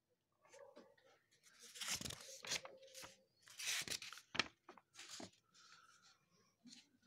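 Faint rustling and scraping noises: several short, irregular bursts in the middle of the stretch, over low room tone.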